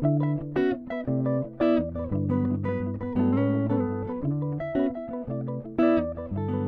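Background music: plucked guitar with a bass line, notes struck about once or twice a second.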